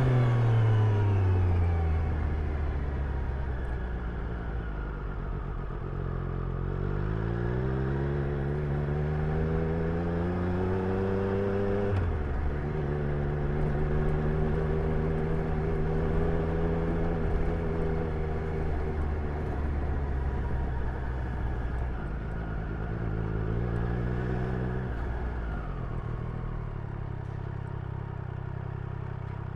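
Triumph Street Triple's three-cylinder engine heard from the rider's seat: the revs fall away at first as the bike slows, then climb, drop sharply at an upshift midway, and hold steady. Near the end the engine revs up briefly again and then falls back to a lower, even running note.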